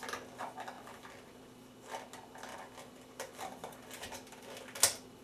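A lid being fitted and pressed shut on a container of vinaigrette: a run of small clicks and light scraping, with one sharp, louder click near the end as it seals.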